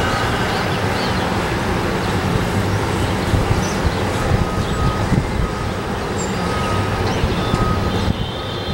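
Steady low rumble of engine and traffic noise, with faint high chirps scattered through it and a short faint beep repeating about once a second in the second half.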